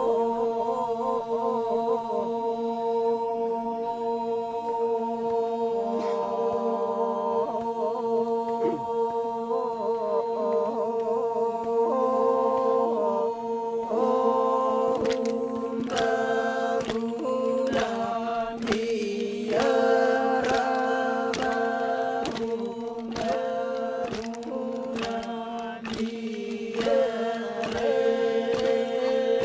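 A group of men chanting a Toraja ma'nimbong song in unison, holding a steady low drone while the melody moves above it. In the second half the chant breaks into short repeated phrases with sharp attacks.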